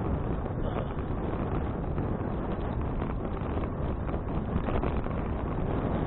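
Steady wind rushing over the microphone of an action camera mounted on a moving bicycle.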